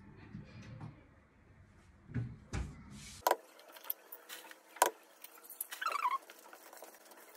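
Refrigerator being rummaged for eggs, with a couple of knocks about two seconds in, then sharp taps of eggs being cracked on the rim of a glass bowl, the loudest a little before five seconds in.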